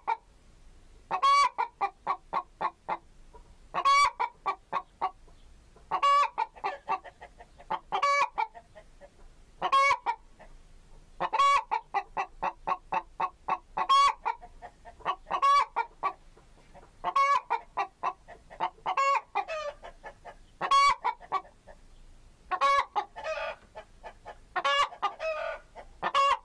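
Domestic chicken cackling: over and over, a quick run of short clucks builds into one long, loud squawk, about every two seconds.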